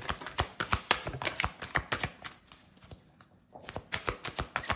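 A deck of tarot cards being shuffled by hand: rapid papery card clicks for about two seconds, a short lull, then more shuffling and cards handled near the end.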